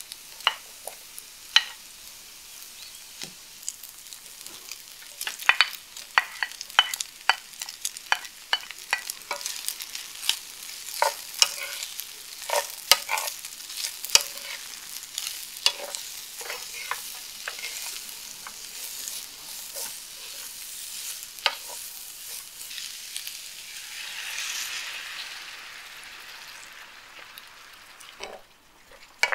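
Chicken and sliced onion sizzling in oil in a frying pan while being stir-fried, the wooden spatula clicking and scraping against the pan many times. The sizzle swells briefly near the end.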